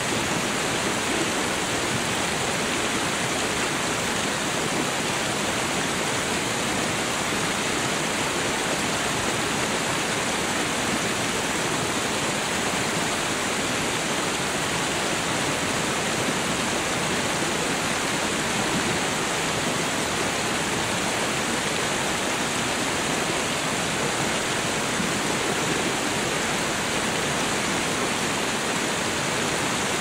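Waterfall rushing steadily: an even, unbroken hiss of falling water with no change in level.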